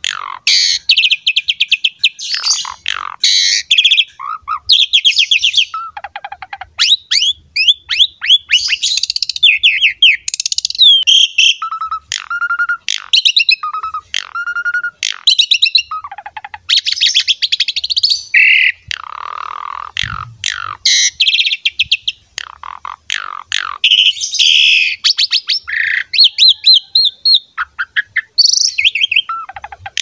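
Asian pied starling (jalak suren) singing a long, non-stop song in full, vigorous 'gacor' voice: rapid chattering trills and high gliding whistles, broken by short clear lower notes, with a harsh rasping call about twenty seconds in.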